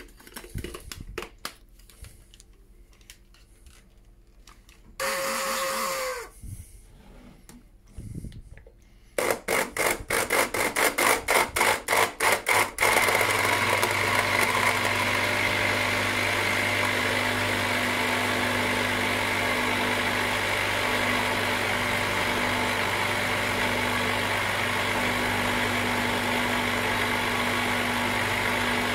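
Hand-held stick blender blending a thin chocolate sauce in a plastic measuring jug. It starts in a series of quick on-off bursts, then runs steadily from about thirteen seconds in.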